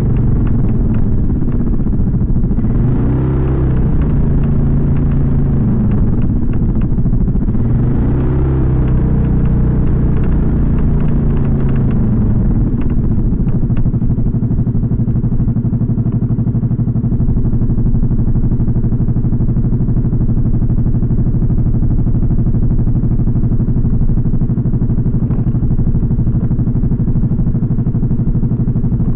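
Suzuki Skydrive 125 scooter's single-cylinder carbureted engine running, heard close to its modified air-filter box. The engine speed rises and falls twice in the first ten seconds or so, then holds steady. The filter box is modified to stop the growling intake noise ('ngorok') from the airbox.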